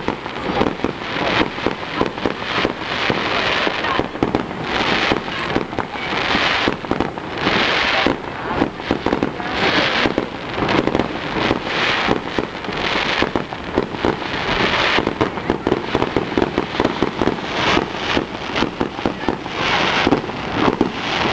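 Fireworks display: a dense, continuous barrage of aerial shell bursts and crackling, bangs coming several a second with repeated swells of crackle.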